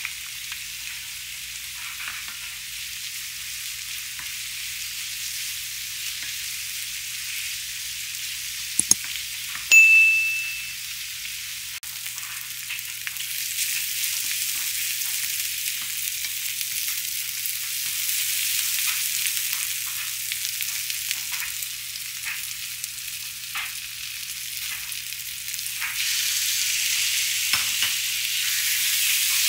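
Onion, green pepper and sliced mushrooms sizzling in olive oil in a frying pan, stirred and scraped with a wooden spoon, with small clicks from the spoon; the sizzle grows louder toward the end. A short ding rings once about ten seconds in.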